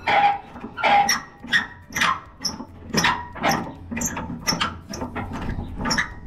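Steel bull-bar retaining pin squeaking as it is turned by hand out of its threaded hole, in short repeated squeals about twice a second.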